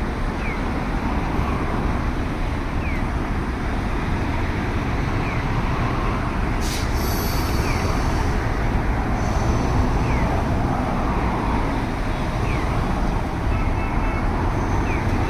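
Steady street traffic noise from passing vehicles. A sharp click comes about halfway through, followed by faint high tones for a couple of seconds.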